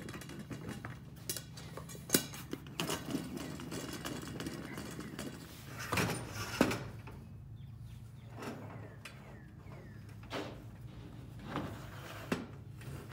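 Scattered clicks and knocks of plastic balloon-wheel hubs being handled and fitted on a galvanized steel conduit axle, the sharpest about two seconds in and a pair near six seconds, over a low steady hum.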